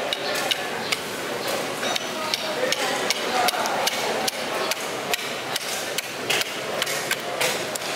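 Knife blade cutting a giant trevally fillet away from its backbone, making sharp, irregular clicks and knocks several times a second as it runs over the rib bones, with a steady background din.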